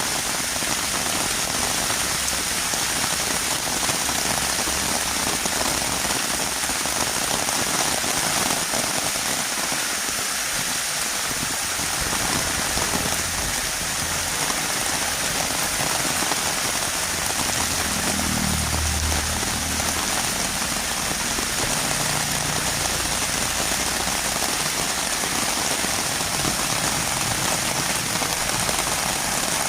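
Heavy rain falling steadily on a road, an even hiss of many drops, with a brief low rumble about two-thirds of the way in.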